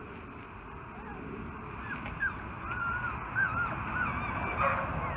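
Young puppies whining and squeaking while play-fighting: a run of short, wavering high-pitched calls that starts about two seconds in and grows louder near the end.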